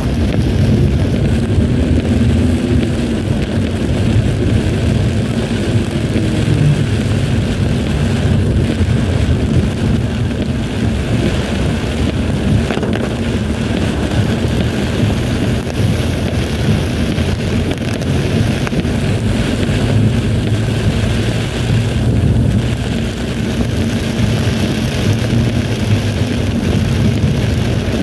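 Steady rumble of a car's engine and tyres on a wet road, heard from inside the cabin, with rain on the car hissing over it.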